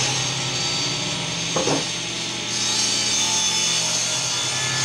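Craftsman 113 table saw running and cutting wood: a steady motor hum under the noise of the blade in the wood, with a brief louder blip about a second and a half in.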